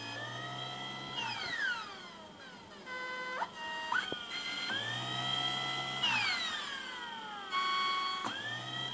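Nidec 50M060B012 brushless DC motor from an HP 2605 laser printer running on a bench speed-control circuit, its whine rising and falling in pitch several times as the speed is turned up and down, with a few quick stepped jumps in pitch, over a steady high tone.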